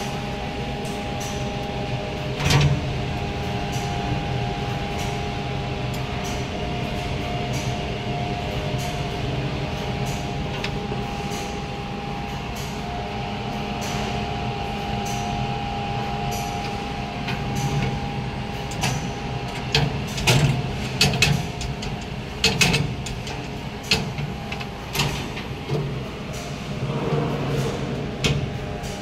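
Lead-free semi-automatic dip soldering machine running with a steady hum that carries a few held tones. Metal clicks and knocks from its slide-rail carriage and handle come once about two and a half seconds in and repeatedly over the last nine seconds.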